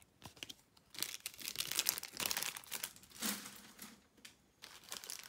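Trading card pack wrapper crinkling in the hands, in dense crackles from about a second in, then again near the end.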